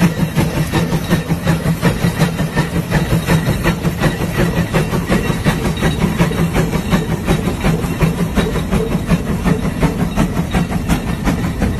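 Case steam traction engine under way, its exhaust chuffing in a steady, even rhythm of about four beats a second over a continuous hiss of steam.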